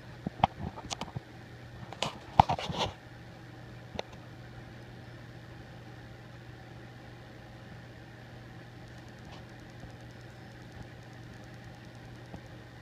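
A steady low mechanical hum with even tones, with a few sharp clicks and rustles in the first three seconds, the loudest about two and a half seconds in.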